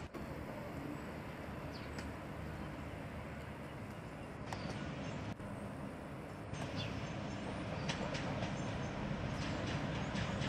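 Suburban diesel multiple-unit train approaching along the track, its engine and rail rumble slowly growing louder, with scattered short clicks and squeaks.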